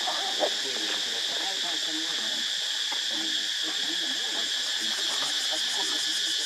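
A steady, high-pitched drone of forest insects, unbroken throughout, with faint distant voices underneath. There is one short knock about half a second in.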